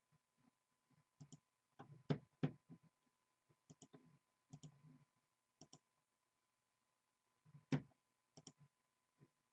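Faint scattered clicks and soft taps at an uneven pace, with a few louder knocks about two seconds in and one near the end.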